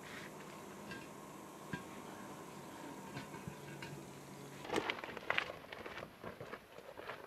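A faint steady hum with a few light taps, then, about five seconds in, footsteps crunching irregularly over loose stones and scree.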